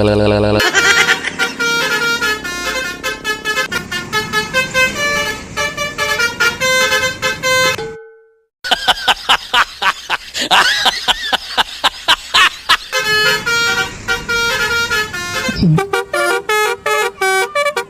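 Multi-tone 'telolet' bus horn of the Basuri type playing a tune in quick stepped notes, after a low steady horn tone that stops just after the start. The horn tune breaks off for a moment about eight seconds in, then carries on with faster notes and pitch slides.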